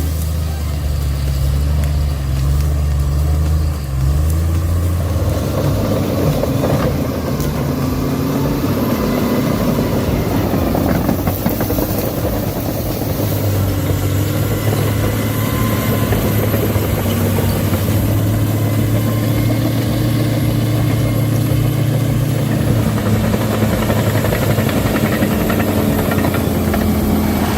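Large engine of heavy machinery running steadily under load, its pitch shifting a few times.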